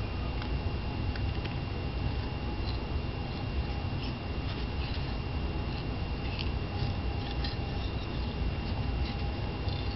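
Faint light ticks and rustles of a West Highland white terrier puppy moving and sniffing about on a playpen mat, scattered irregularly over a steady low background rumble.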